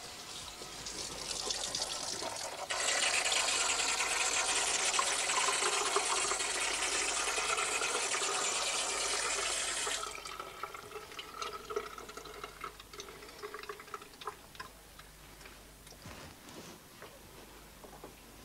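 Tap water running onto a copper etching plate held under the tap in a sink. The flow starts abruptly about three seconds in and stops abruptly about ten seconds in; before and after it, only faint dripping and small clicks of handling.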